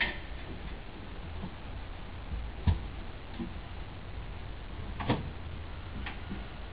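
A few separate knocks and clicks, spaced a second or two apart, as gear is handled in the open compartment of a metal equipment trailer, over steady low background noise.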